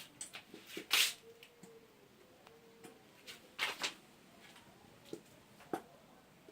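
Scattered clicks, taps and rustles of a plastic glue bottle and container being handled while white glue is squeezed out, with a faint drawn-out whine for about two seconds near the start.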